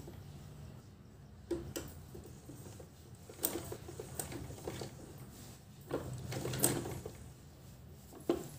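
Domestic sewing machine stitching along a fabric edge: a steady low running hum with several sharp clicks and knocks at irregular moments.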